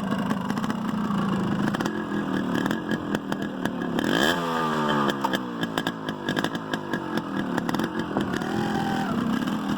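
Yamaha RX 100's two-stroke single-cylinder engine running, revved once about four seconds in, then settling back.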